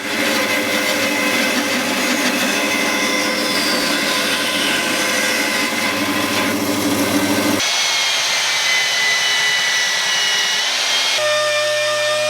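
Woodworking power tools running steadily in back-to-back clips, the sound changing abruptly about seven and a half seconds in and again about eleven seconds in: a bandsaw trimming the beech handle top and walnut wedge flush with the mallet head, and the sanding that follows.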